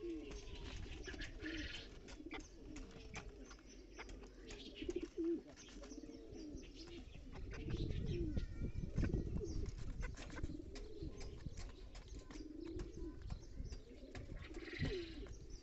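Pigeons cooing over and over, each coo a low bowed call repeating about once a second, over sharp little clicks of bantam chickens pecking at the loft floor litter. There is a louder low rumble of movement about halfway through.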